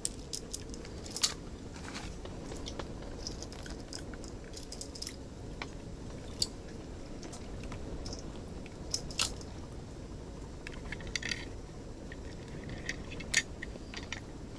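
Irregular small clicks and taps from hands handling ice-fishing tackle: a plastic float on the line and short winter rods with small reels. They sound over a steady low rumble.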